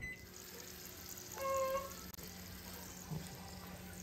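A short, high-pitched cry about a second and a half in, held on one pitch, over a steady low hum.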